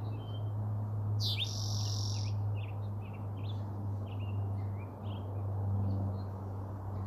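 A bird calling: one loud, harsh call about a second long just after the start, then a run of short high chirps. A steady low hum runs underneath.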